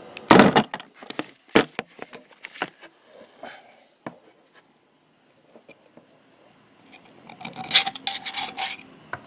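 Hand-held swing-away can opener cutting the end off a thick aerosol grease can. Clicks and knocks come in the first few seconds as it is clamped on, then a quiet pause, then a few seconds of rapid grinding clicks near the end as the handle is turned and the wheel cuts the rim.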